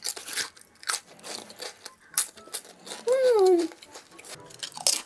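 Crisp crunching of cheese-flavoured potato chips being chewed, a quick run of sharp crackles. About three seconds in, a short tone that slides down in pitch is the loudest sound.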